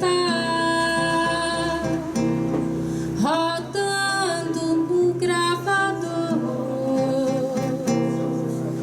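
Live song: an acoustic guitar strummed under a singer's long held, wavering notes.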